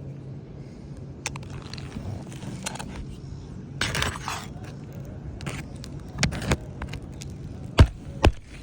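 Irregular sharp knocks and a short scrape on an asphalt shingle roof, the two loudest knocks close together near the end, over a steady low hum.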